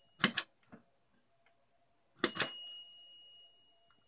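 A push-button switch clicks, then clicks again about two seconds in, and the Cen-Tech digital multimeter in diode mode gives a steady high-pitched beep for nearly two seconds. The beep signals a closed circuit through the switch.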